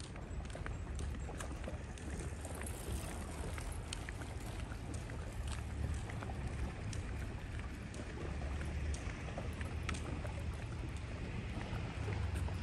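Outdoor seaside ambience dominated by wind buffeting the microphone, an uneven low rumble, with a steady hiss and scattered small clicks.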